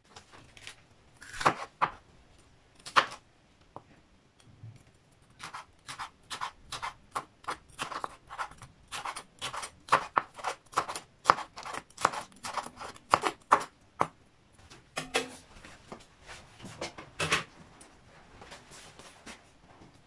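Chef's knife slicing a green bell pepper into strips on a wooden cutting board: sharp knocks of the blade striking the board, two loud ones early, then about two a second through the middle, growing sparser near the end.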